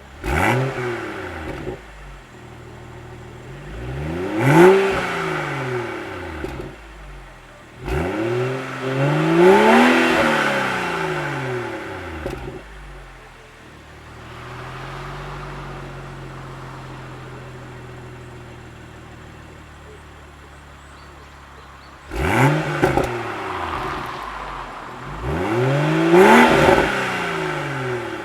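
BMW Z4 M40i's turbocharged 3.0-litre straight-six revved repeatedly through its exhaust: rev rises and falls in the first twelve seconds, a steadier lower running stretch in the middle, and two more revs near the end.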